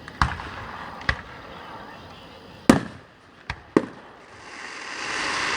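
Aerial fireworks exploding: five sharp bangs in the first four seconds, some close together, then a hiss that swells near the end.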